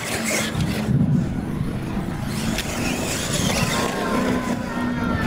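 Radio-controlled monster trucks racing across gravel, their motors whining and changing pitch as they speed up and slow down, over a steady crunch of tires on stones.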